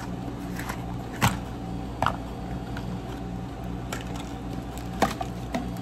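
Soft background music with steady held notes, with a few sharp clicks from handling a Barbie Color Reveal doll's clear plastic tube and its pink paper wrapping.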